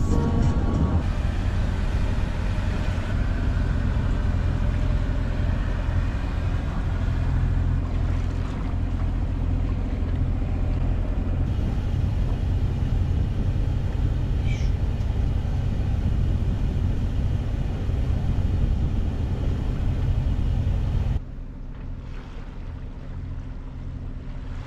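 Sailboat's engine running steadily under way, a low drone, with the boat motoring across flat calm water. It becomes quieter near the end.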